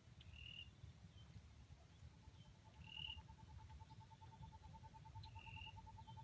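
Faint bird calls from the surrounding forest: three short, high chirps a couple of seconds apart, and from about midway a fast, even run of repeated lower notes. A faint low rumble lies underneath.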